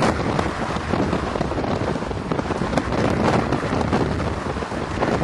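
High wind gusting and buffeting the microphone: a loud, rushing noise that swells and eases.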